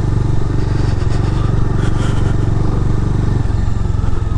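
Bajaj Dominar 400's single-cylinder engine running steadily under way, heard from the rider's seat, with a slight change in its drone about three and a half seconds in.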